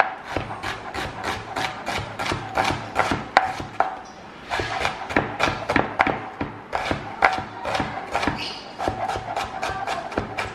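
Chef's knife slicing a red onion on a plastic cutting board: a quick run of chopping taps, about three to four a second, with a short pause about four seconds in.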